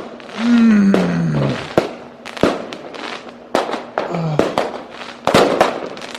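Fireworks and firecrackers going off in an irregular string of sharp bangs and crackles, with a man's low, falling groan about half a second in.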